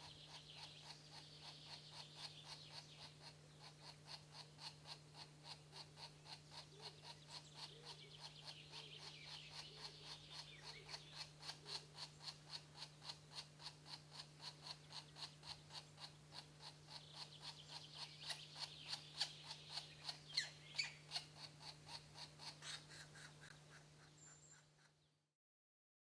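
Green woodpecker nestlings begging from the nest hole: a faint, rapid, evenly repeated series of calls, several a second, over a steady low hum. It cuts off abruptly near the end.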